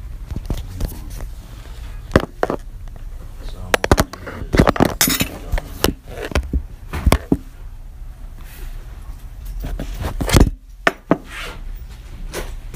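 Irregular sharp knocks and clinks of objects being handled, over a steady low hum. There is a denser cluster about five seconds in and a loud knock about ten and a half seconds in.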